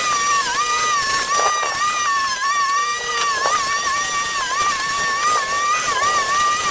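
A small engine running steadily at high speed, its high whine dipping briefly in pitch every second or so.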